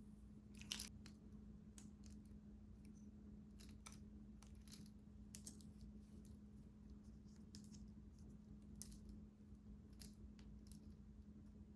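Scattered light clicks and taps of small objects being handled, about a dozen spread irregularly, over a faint steady hum.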